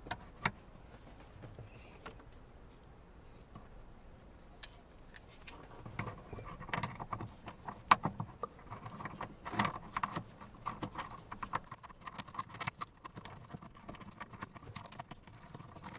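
Irregular small clicks, taps and rattles of hands working the bolts of a radar detector mirror mount with a hex key. There are a few at first, then they come thick and close together from about a third of the way in.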